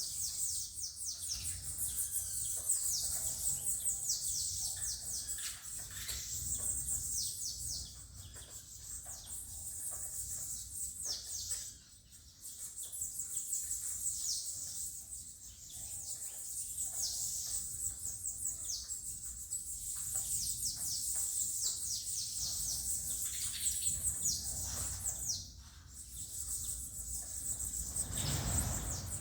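Saffron finches (canário-da-terra) singing: long runs of quick, high, down-slurred chirps, broken by two short pauses.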